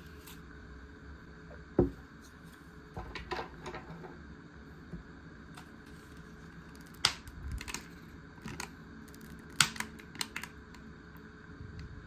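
Scattered taps, clicks and light knocks of a plastic sashimi tray and a wooden dish being handled and set down on a cloth-covered table. The sharpest knocks come about two seconds in and again near the ten-second mark, over a faint steady hum.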